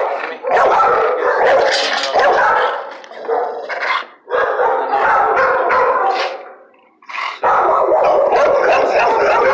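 A shelter dog barking loudly and repeatedly in long runs, with a short dip about four seconds in and a brief break around seven seconds. The dog is agitated, reacting to a visitor in a wheelchair at its kennel.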